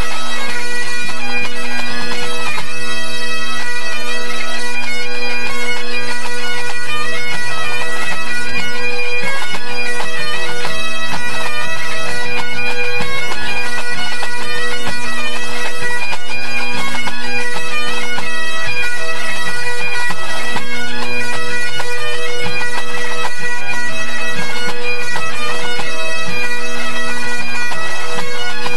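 A pipe band's Great Highland bagpipes playing together as the band tunes up: steady drones under the chanters' fast-moving melody.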